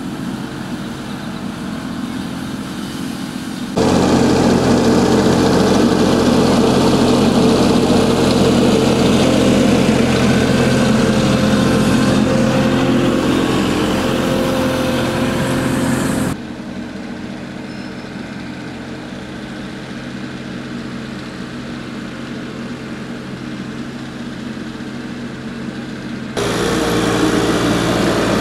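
Avant 760i mini loader's diesel engine running steadily while it works. The sound jumps louder about four seconds in, drops suddenly around the middle, and rises again near the end.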